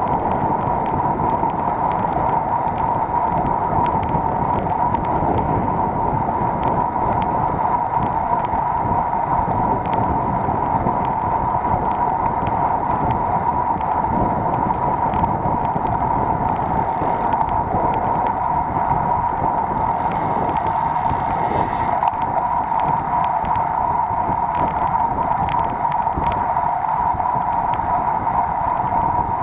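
Wind and road noise rushing over a bicycle-mounted camera while riding at speed, steady throughout, with a constant mid-pitched drone running under it.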